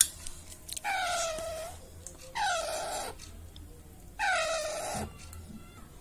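Baby Alexandrine parakeet giving three drawn-out, whining food-begging calls, each dipping in pitch at the start, about a second and a half apart. A sharp click sounds just before the first call.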